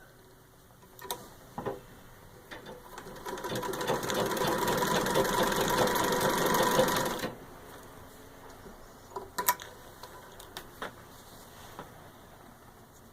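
1924 Singer 66-4 treadle sewing machine stitching at full speed through six layers of denim. The rapid stitching builds up over about a second, runs loud for about four seconds and stops abruptly. A few sharp clicks come before and after it. This is a full-speed stitch test, run to show whether the machine skips stitches or breaks thread.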